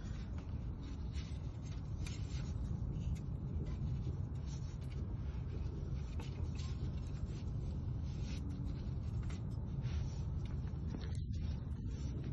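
Oil filter wrench scraping and clicking irregularly against a Jeep Wrangler's oil filter as it is tightened by hand, over a steady low rumble.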